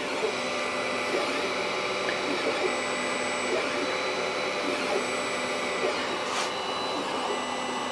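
Sovol SV01 3D printer running, its stepper motors whining as the print head moves, with tones that shift in pitch as the moves change, over a steady mechanical hum. The motor noise is typical of stock, non-Trinamic stepper drivers.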